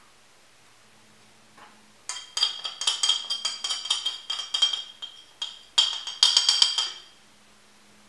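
Rapid tapping on a small hard container to shake cocoa powder out over mashed bananas: quick sharp clicks with a slight ringing, starting about two seconds in, pausing briefly near five and a half seconds, then a second run that stops about a second later.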